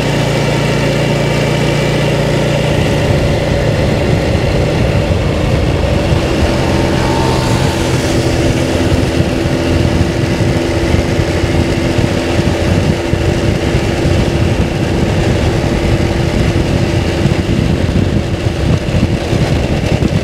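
Motorbike engine running steadily while riding along a road, with a broad rushing noise of wind and road over it.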